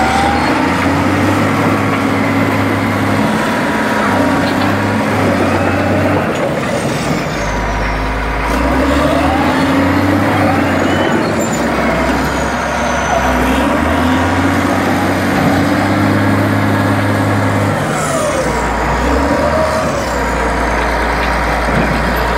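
Caterpillar D6D crawler dozer's six-cylinder diesel running as the dozer travels, its note shifting several times. Over it the steel tracks squeal in high notes that rise and fall.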